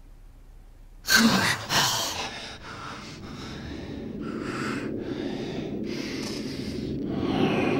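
A sudden loud gasp about a second in, then heavy, rasping breaths, roughly one every 0.7 s. Under the breaths is a low drone that slowly grows louder.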